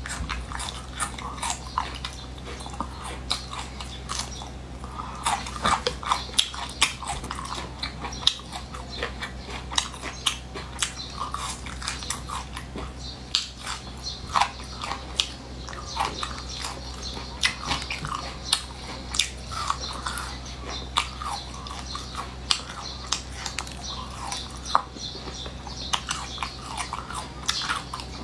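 A person chewing and biting food close to the microphone, with irregular sharp wet clicks and smacks several times a second over a steady low hum.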